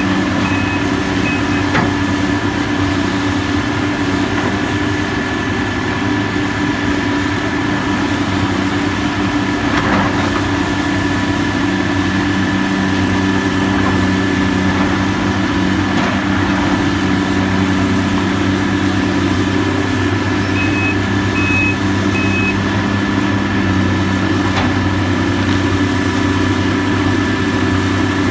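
Diesel engine of heavy demolition machinery running steadily, with a backup alarm beeping briefly near the start and again in a short run of about four beeps about three-quarters of the way through.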